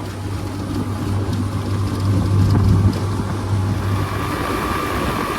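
Small boat's outboard motor running steadily under way, a low hum with rushing noise.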